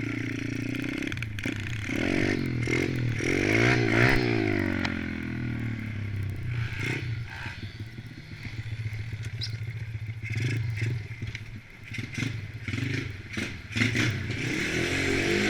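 Small single-cylinder four-stroke pit bike engines running and revving, the pitch swinging up and down sharply around four seconds in, with scattered knocks.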